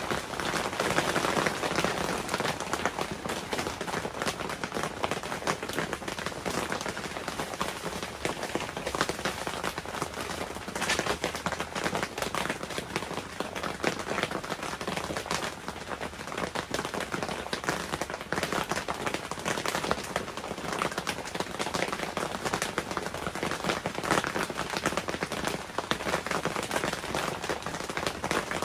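Steady rain falling on a clear tent, heard from inside as a dense, even crackle of countless small drop hits.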